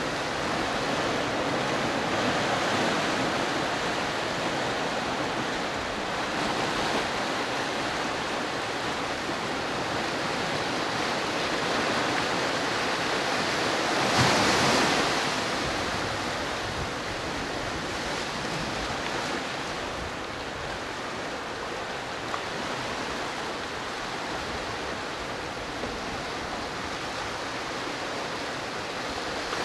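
Pacific surf washing into a narrow rocky cove, a steady rushing wash of waves against the rocks, with one louder surge about halfway through.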